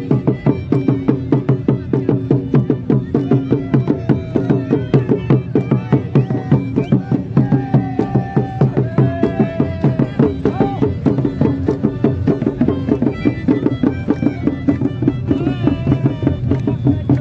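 Santhali folk drums for Sohrai dancing, beaten by hand in a fast, steady, driving rhythm, with held melody notes above them.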